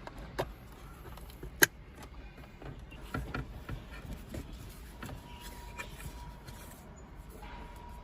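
Scattered clicks and taps of plastic parts and cables being handled during a car head-unit install, with one sharp click a little over a second and a half in. A faint steady tone comes in about five seconds in.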